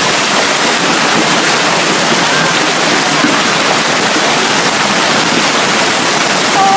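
Hailstorm: hail and heavy rain pounding down in a dense, steady roar.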